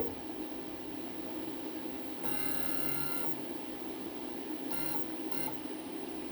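CNC mill's axis drive whining in short jogging moves as the tool is brought down onto the work: one move about a second long near the middle, then two brief ones, over a steady machine hum.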